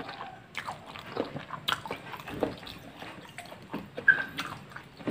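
Close-up mouth sounds of a person eating vegetable soup and a fried fritter: chewing, lip-smacking and small clicks in an irregular run, with one brief high squeak about four seconds in.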